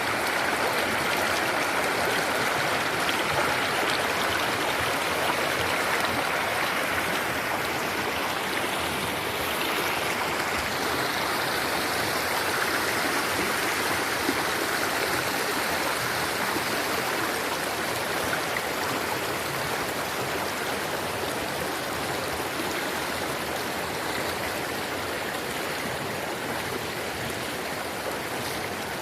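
A stream flowing: a steady rush of running water with no pauses.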